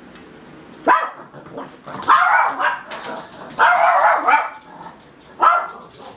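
Miniature Pinscher barking in four loud outbursts: a short bark about a second in, two longer runs of barks in the middle, and a short bark near the end.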